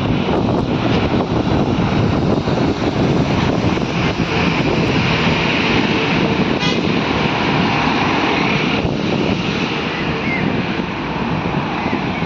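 Highway traffic of heavy goods trucks and other vehicles driving up the road, a steady loud rumble of engines and tyres, with wind buffeting the microphone.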